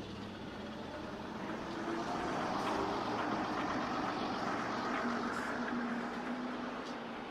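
Steady city traffic noise, a wash of engine and tyre sound with a few faint hums, swelling to its loudest midway and then easing.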